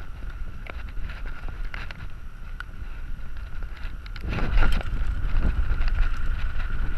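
Mountain bike rolling fast downhill, with wind buffeting the camera microphone over a low rumble. Scattered clicks and rattles come from the bike and its tyres, first over a wooden boardwalk. From about four seconds in, on the dirt trail, the rumbling and rattling get louder and rougher.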